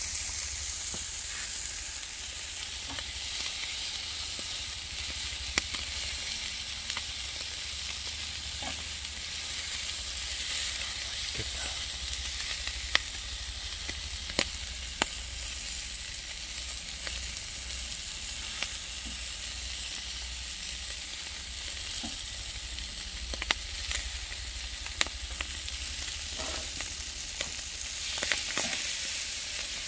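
Eel pieces sizzling on a grill grate over glowing charcoal: a steady sizzle with sharp pops and crackles scattered through it, over a low rumble.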